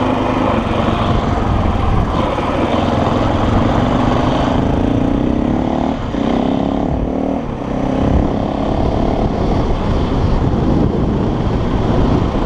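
Motorcycle engine running under way, its pitch rising and falling in the middle with two brief dips as the throttle changes, over a steady low rush of noise.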